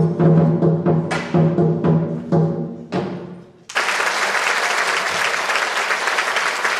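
Large Chinese drum beaten in a quick run of strokes, with a few sharper accented hits, ending about three and a half seconds in; then audience applause breaks out suddenly and keeps going.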